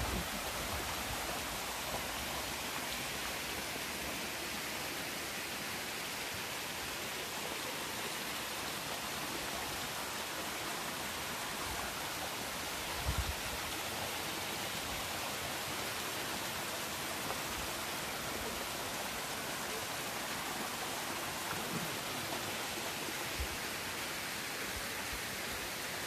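Steady rush of a waterfall, a gentle cascade down a mossy rock face splashing into a shallow pool. A brief low bump comes about halfway through.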